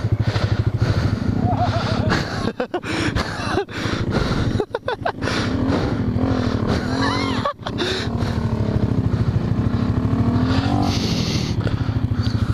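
Honda Grom's small single-cylinder motorcycle engine running under throttle while being ridden, its pitch rising and falling several times, with a few brief dips in the sound.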